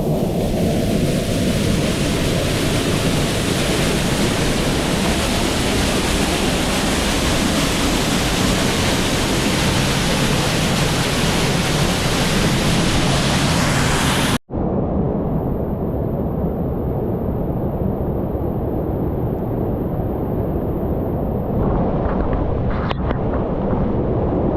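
Steady rushing roar of a waterfall's falling water. It cuts out for an instant about fourteen seconds in and comes back duller, with a few faint knocks near the end.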